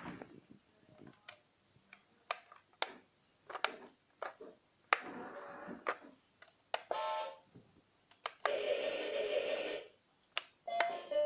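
Electronic beeps and short sound effects from a battery-powered ride-on toy car, mixed with sharp clicks. A bright electronic tune starts near the end.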